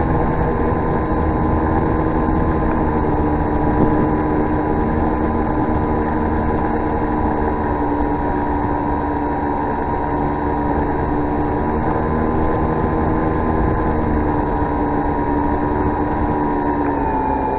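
Onboard sound of an electric RC pusher glider in flight, slowed to half speed: the motor and spinning propeller give a steady whine over a constant rush of wind noise. The whine drops slightly in pitch near the end.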